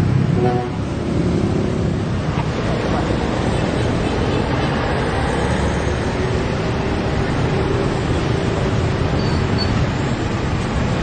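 Roadside traffic noise: a steady, loud rumble of passing vehicles, with a short pitched tone about half a second in.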